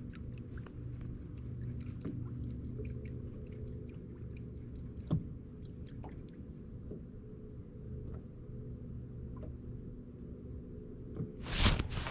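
Electric trolling motor on a bass boat's bow humming steadily, with scattered light ticks and knocks on the boat. There is a sharper knock about five seconds in and a louder bump near the end.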